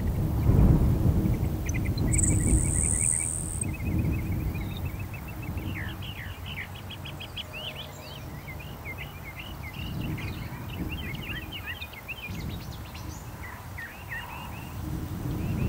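Small songbird singing in quick runs of short chirps and trills, busiest in the middle, over a low rumble of wind on the microphone that is strongest at the start and near the end.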